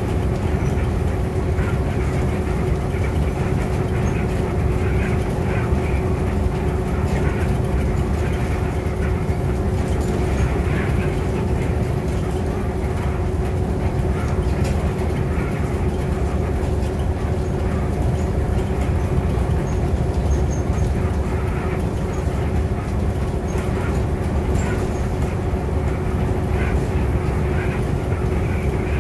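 Inside a city bus cruising at freeway speed: a steady drone of engine and road noise with a constant hum running through it.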